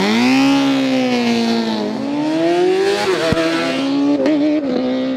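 Racing superbike engine at high revs, pulling away hard. Its pitch climbs and drops sharply twice as it shifts up through the gears.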